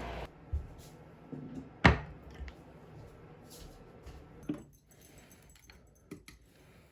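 Light clicks and knocks of objects being handled, with one sharper knock about two seconds in.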